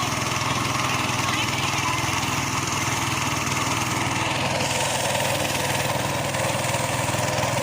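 Small boat engine running steadily at a constant speed, with a fast even firing rhythm.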